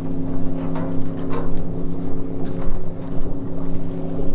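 An engine running at a steady speed, with some wind noise on the microphone.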